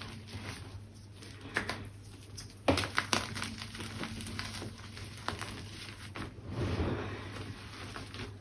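Gym chalk being crushed and crumbled by hand, with a few sharp crunches (about a second and a half in, around three seconds in, and past five seconds) over a soft, continuous crumbling hiss. A soft breath through a face mask comes near the end.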